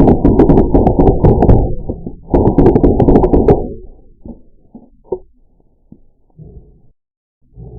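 Full-auto BB gun firing in two long rapid bursts of knocks and clatter, followed by a few scattered single knocks.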